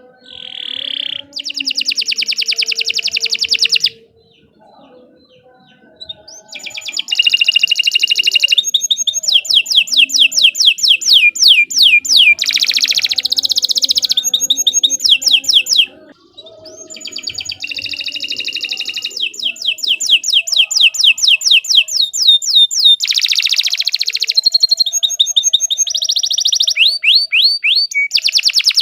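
Domestic canary singing long rolling trills of rapidly repeated high notes, phrase after phrase, breaking off a few seconds in and briefly again about halfway.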